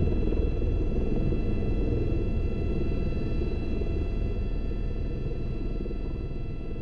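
Tour helicopter's turbine and rotor heard from inside the cabin while on the ground: a dense, steady rumble with a fixed turbine whine above it, slowly getting quieter.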